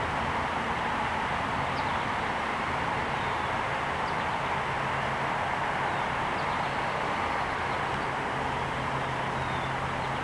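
Steady background rumble and hiss with a low hum, and a few faint short high chirps.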